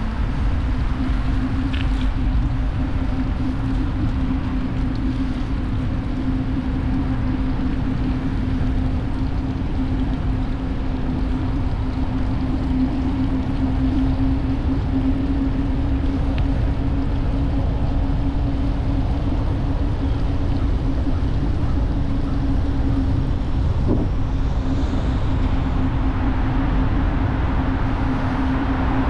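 Wind buffeting an action camera's microphone while cycling, a steady low rumble, with a constant low hum underneath.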